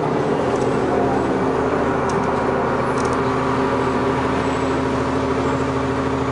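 New Flyer D40LF diesel transit bus idling while standing still, its engine running at a steady, unchanging pitch.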